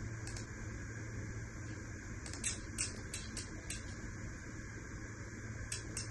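Steady low hum of running test-bench equipment, with a scattering of faint, sharp clicks: a few between about two and four seconds in and several more near the end.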